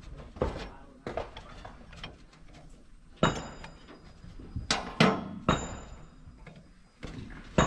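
Sharp metallic knocks and clinks of a hand tool on metal during work on a diesel fuel injector, about seven irregular strikes, a few of them ringing briefly.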